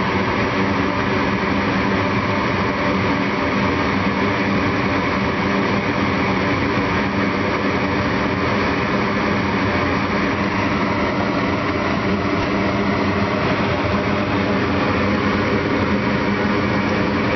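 Goodman 80% gas furnace running: a loud, steady mechanical hum with fixed tones that holds unchanged throughout.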